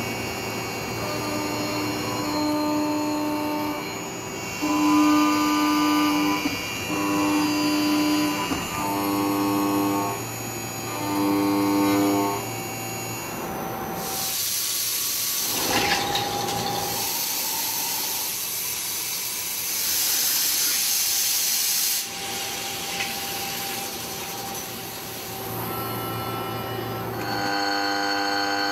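CNC milling machine cutting a metal part, its cutter whining in repeated one-to-two-second passes. Halfway through, a loud hissing spray takes over for several seconds, and then the whining cuts return near the end.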